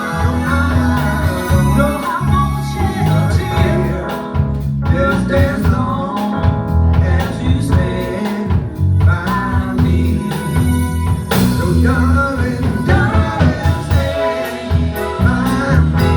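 A band playing a song with a singer over a steady bass line.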